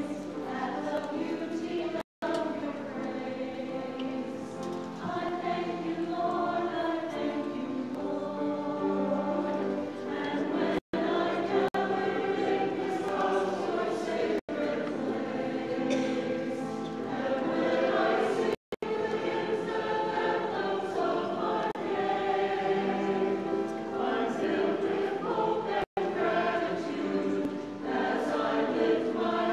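Mixed choir of men and women singing a sacred choral piece in sustained, full harmony. The sound cuts out completely for an instant about five times.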